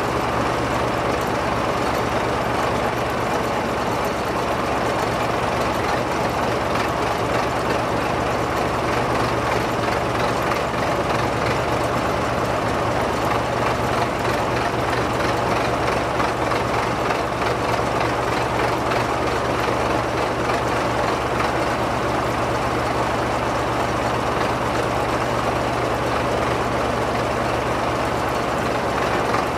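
Diesel engine of a JCB Loadall telescopic handler running steadily with a constant low hum while its boom lifts a heavy load.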